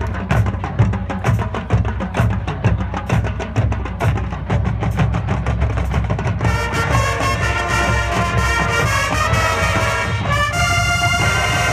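Marching band playing. The drumline lays down a steady groove over a low bass, and the brass section comes in loudly about six seconds in.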